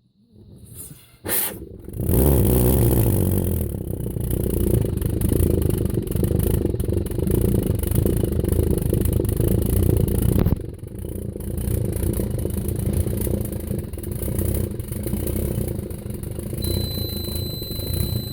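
Homemade pulse jet engine starting: a rising hiss, a sharp bang about a second in, then the engine running loud, deep and steady. It drops in level suddenly about ten seconds in and keeps running, and a faint high steady tone comes in near the end.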